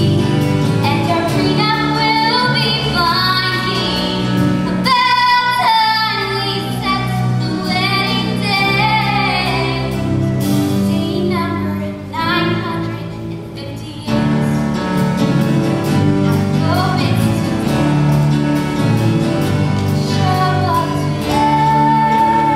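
A woman singing a musical-theatre song solo with instrumental accompaniment, holding a long high note near the end.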